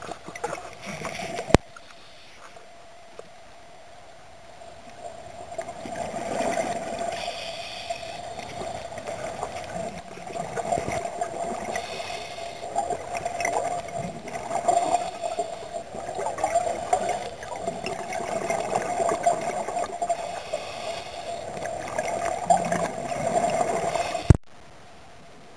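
Underwater recording of scuba divers' exhaled regulator bubbles gurgling in repeated surges over a steady hum. A sharp click comes about a second and a half in and another near the end, after which the sound cuts off abruptly.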